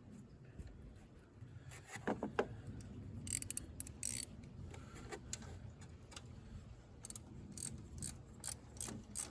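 A 3/8-inch ratchet with a 13 mm socket clicking in short irregular runs, with a few light metal clinks, as the serpentine belt idler pulley bolt is run back in and tightened.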